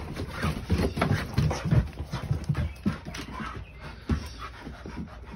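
Two American pit bull terriers play-fighting, scuffling and wrestling, with irregular thumps and knocks of paws on wooden porch boards.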